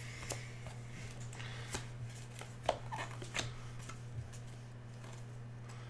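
Football trading cards being handled and slid through one by one, with scattered soft clicks and rustles over a steady low hum.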